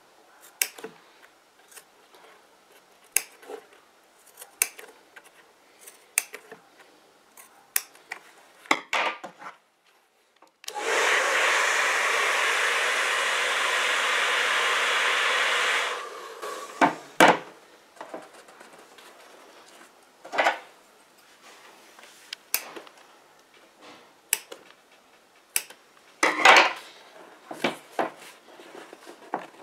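Handheld heat gun blowing steadily for about five seconds, warming the leather over a curve of the door panel. Before and after it come scattered sharp snips and clicks: scissors trimming the leather and hands working it over the panel's plastic.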